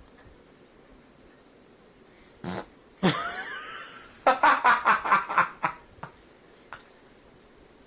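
A fart: a short blip, then a loud fart lasting about a second, followed by a quick sputtering run of about eight sharp bursts.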